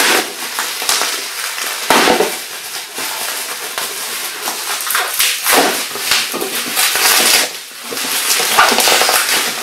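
Hands rummaging through a box of packing material, rustling and scraping in irregular bouts with a short lull near the end.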